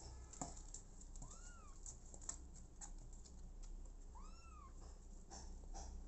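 Kitten mewing twice, about three seconds apart: short, faint mews that rise and then fall in pitch. Soft scattered clicks and rustles of movement run underneath.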